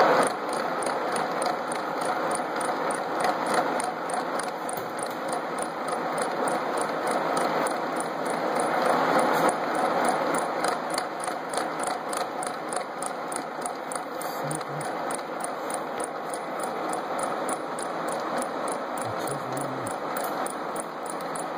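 Metal lathe running, a steady mechanical rattle with fine rapid ticking throughout.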